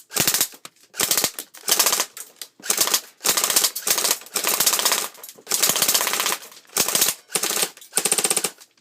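Airsoft gun firing on full auto in short rapid bursts, about a dozen in all, each a quick rattle of shots.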